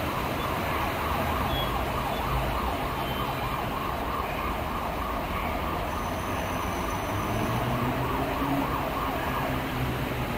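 Third-rail electric multiple unit trains with nose-suspended traction motors running through the station, making a steady motor whine and growl over a low hum. A lower tone rises in pitch in the second half as a train gathers speed.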